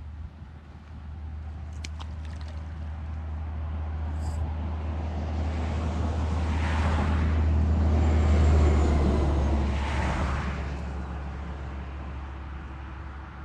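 A large vehicle passing at a distance: a low rumble that swells to its loudest about eight or nine seconds in, then fades away.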